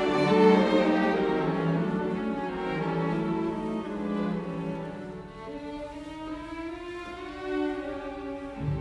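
Music: a slow string piece led by violin, with long held notes that change slowly.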